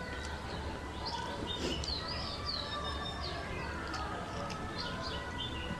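Small birds chirping repeatedly in the background, with a few sharp clicks of forks on plates and a steady low hum underneath.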